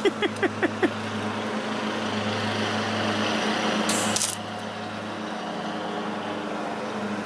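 Welder tack-welding bolts onto the car's sheet metal: crackling arc hiss that cuts off sharply about four seconds in, with another short burst at the end, over a steady electrical hum. A quick run of about six light taps comes in the first second.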